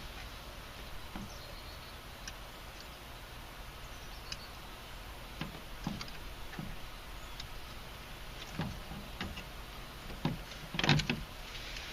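Scattered light clicks and taps from hands working on a car door speaker and its wiring, with a louder cluster of knocks about ten seconds in.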